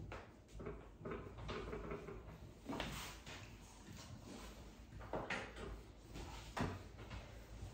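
Dry-erase marker drawing on a whiteboard: a few short, irregular strokes, the loudest about three seconds and about five seconds in, over a faint steady room hum.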